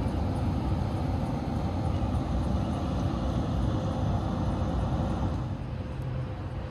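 Street traffic: a steady low rumble of passing vehicles, easing off a little near the end.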